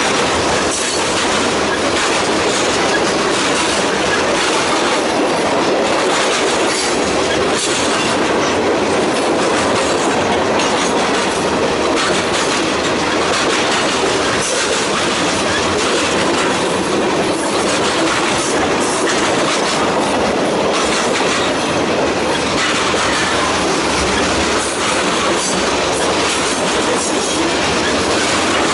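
Norfolk Southern freight train's tank cars and covered hoppers rolling past close by: a loud, steady rumble and clatter of steel wheels on the rails.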